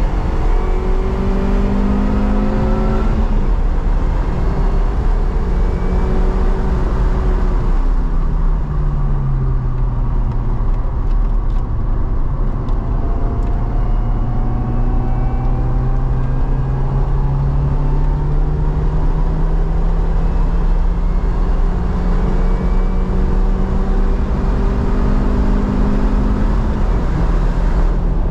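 A car's engine heard onboard at track speed, with wind and road noise. The engine note drops about eight seconds in, then climbs slowly and steadily in pitch as the car accelerates for most of the rest, and falls again shortly before the end.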